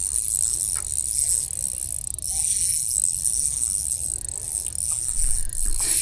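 Spinning reel being cranked, giving a steady rattling whir as the jig is retrieved, over a low rumble of wind on the microphone.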